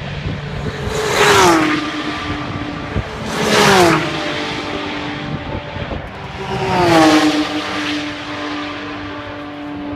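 Racing cars passing at speed one after another, three pass-bys about one, four and seven seconds in, each engine note dropping in pitch as the car goes by.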